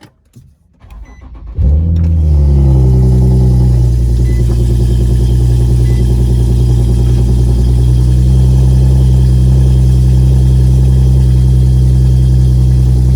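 Infiniti G37S 3.7-litre V6 cold start: the starter cranks briefly, and the engine catches about a second and a half in with a quick flare in revs. It then settles into a steady, loud, elevated cold idle.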